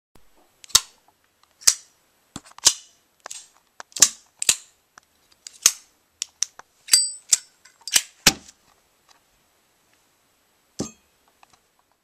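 Folding pocketknife blades being snapped open and shut by hand: a run of sharp, uneven clicks, some with a brief metallic ring, then a single click near the end.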